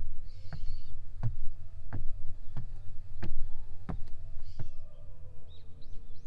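Footsteps climbing wooden trail steps, about one and a half a second, over a steady low rumble of wind on the microphone. Near the end a bird starts a quick series of high chirps.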